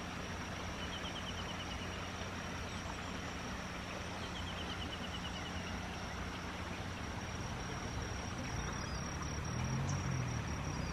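Rural outdoor ambience: a steady hiss with a thin, high, steady whine and two short trills of rapid high ticks. A low rumble builds near the end.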